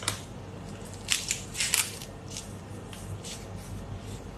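The shell of a large prawn being cracked and pulled apart by hand: a string of short, wet crackles and squishes as the head and shell come away from the meat.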